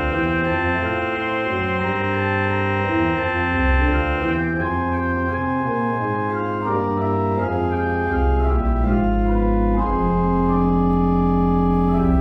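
Church organ playing sustained chords over deep pedal bass notes. The highest notes drop out about four seconds in, and a long low pedal note holds from about ten seconds in.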